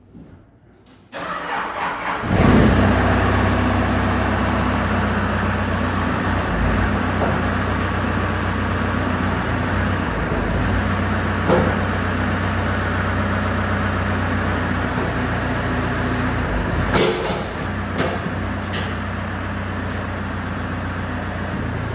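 Case 580 Super M Series 2 backhoe's diesel engine being started: the starter cranks about a second in, the engine catches a second later and settles into a steady run. A thump and a couple of sharp clicks come near the end.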